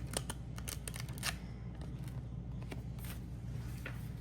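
Paper and packaging being handled: a run of light rustles and small clicks, irregular, over a steady low hum.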